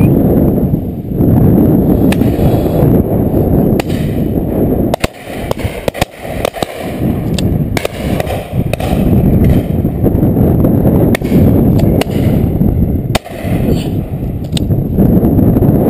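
Wind buffeting the microphone in a strong, gusting rumble, with about a dozen sharp cracks scattered through the middle and latter part.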